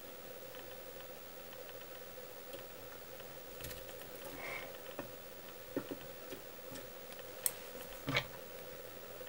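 Quiet handling at a fly-tying vise: fingers and thread working the materials of a nymph, giving a few faint clicks and ticks, the loudest two near the end, over a steady faint hum.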